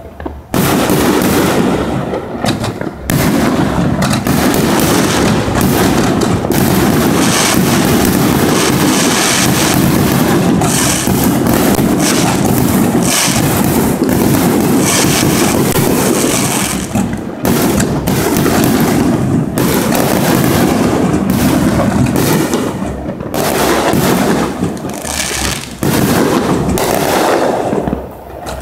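Aerial fireworks bursting in a dense, near-continuous barrage of bangs and crackle, with a few brief lulls, thinning out near the end.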